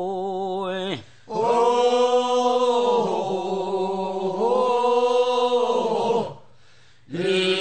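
Korean bier-carriers' funeral song (sangyeo-sori), sung as a chant in long drawn-out phrases, with a brief pause about a second in and another near six seconds.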